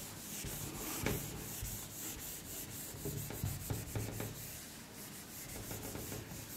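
Handheld duster rubbing across a whiteboard, wiping off marker writing in quick repeated back-and-forth strokes.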